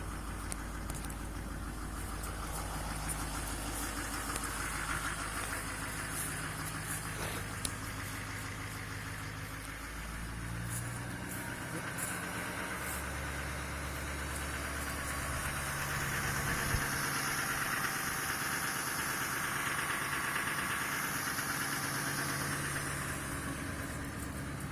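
LMM Duramax 6.6-litre V8 turbo-diesel idling steadily after a cold start. About eleven seconds in its note steps up and holds higher, the engine going into its cold-weather high idle of about 1050 rpm instead of the usual 720.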